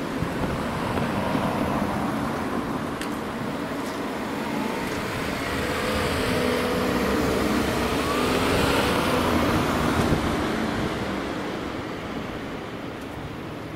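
A vehicle passing by: its rumble and hum build to a peak about nine seconds in, then fade.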